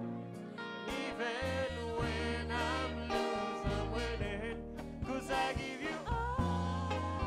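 An acoustic song: a singer holding wavering notes over plucked acoustic guitar.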